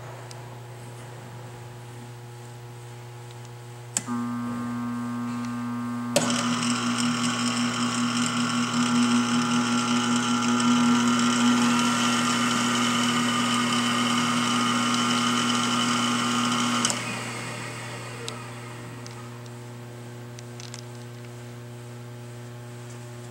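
Buehler Beta grinder-polisher with its Vector power head, running over a steady low hum. About four seconds in, a motor clicks on with a steady whine. About two seconds later a second drive cuts in with a click and adds a louder whirring hiss; after about ten seconds both switch off with a click and spin down over a few seconds.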